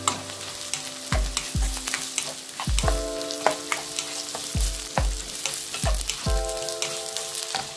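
Chopped onion, garlic and carrot sizzling in hot oil in a nonstick wok, stirred with a plastic spatula that scrapes and taps against the pan again and again.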